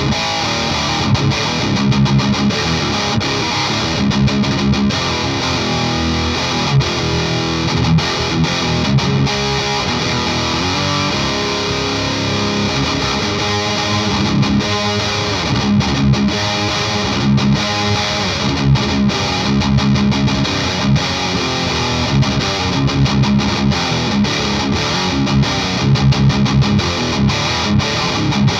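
Electric guitar played with heavy overdrive through a Parks Custom Pedals Dagon OD, a Klon-style overdrive pedal: continuous distorted riffing with rhythmic low chugs and short stops between phrases.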